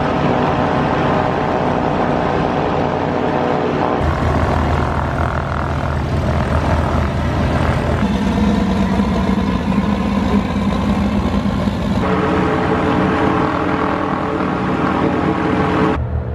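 Piper PA-34 Seneca twin-engine planes taxiing, both piston engines running at low power with a steady propeller-and-engine note of several tones. The sound changes abruptly about every four seconds as shots are cut together.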